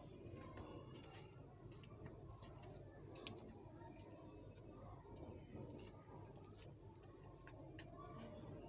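Near silence: a faint low background hum with scattered soft ticks and clicks at irregular intervals.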